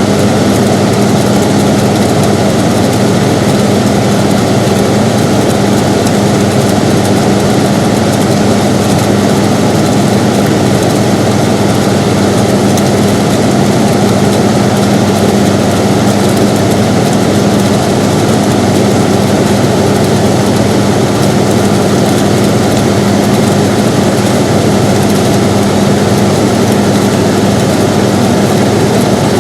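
Air conditioner running steadily: an even rush of air with a constant low hum.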